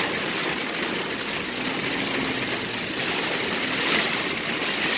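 Heavy rain pelting a car's roof and windshield, a steady hiss, with the car's engine running underneath.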